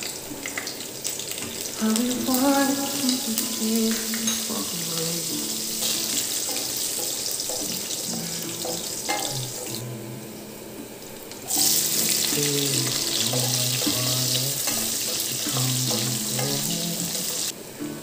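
Garlic, green chillies and dried red chillies sizzling in hot oil in a kadhai, a steady crackling hiss. The sizzle falls away briefly about ten seconds in and comes back suddenly louder a second and a half later. Background music plays underneath.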